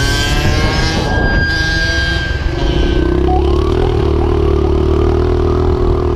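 Dirt bike engine running at high revs, its note holding steady through the second half. A siren's long wail overlaps it for the first half and ends about three seconds in.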